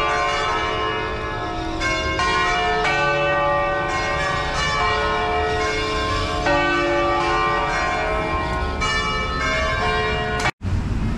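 Church bells ringing: one pitched strike after another, each tone ringing on over the next. The sound breaks off abruptly shortly before the end.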